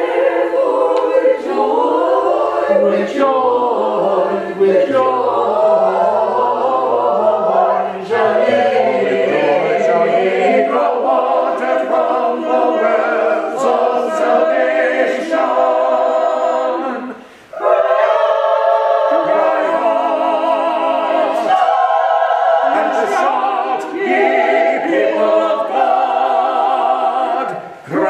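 Small church choir singing, several voices together, with a brief pause between phrases about seventeen seconds in.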